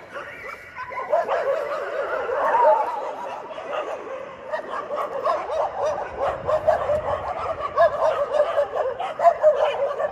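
A pack of stray dogs barking and yipping together, many overlapping barks without a break; the feeder puts it down to a dog from another area having come near.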